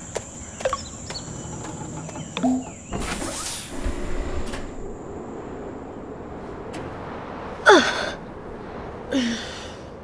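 A brief whooshing rush about three seconds in, then two short vocal sounds near the end, the first gliding down in pitch: a woman's effort sounds as she reaches up and hangs from a pull-up bar.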